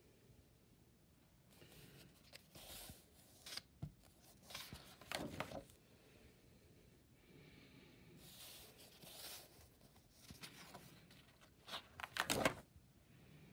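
Paper pages of a spiral-bound sketchbook being turned by hand, rustling in several short swishes, the loudest near the end.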